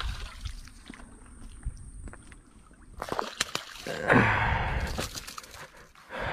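A small juvenile snook on the line, splashing at the water's surface, with scattered light clicks and handling noises. About three to four seconds in comes a louder burst of rustling and scuffling as the fish is hauled up out of the water onto the grassy bank.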